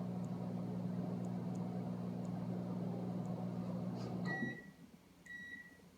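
Microwave oven running with a steady hum, which cuts off about four seconds in, followed by two short high beeps a second apart.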